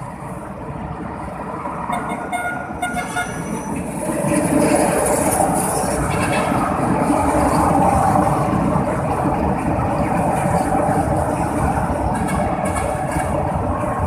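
LRT-1 third-generation light rail train approaching on an elevated track and rolling past close by. It grows louder over the first few seconds, then holds a steady, loud rumble of wheels and cars passing.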